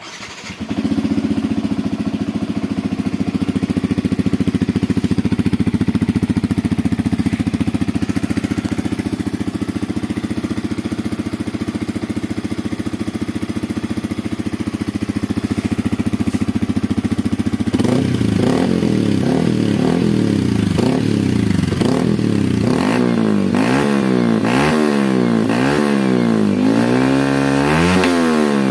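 Yamaha WR 155's single-cylinder four-stroke engine, breathing through an aftermarket imitation Akrapovic exhaust, starts and settles into a steady idle. From a bit past the middle it is blipped over and over, each rev rising and falling in pitch, the blips coming quicker near the end.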